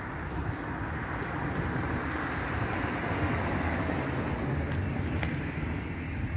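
Steady low outdoor rumble with no clear tone, swelling gently toward the middle and easing slightly near the end.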